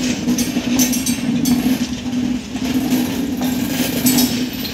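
Indian Railways passenger coaches rolling past on the track: a steady hum and rush of wheels on rail, with a handful of sharp clacks as the wheels cross rail joints.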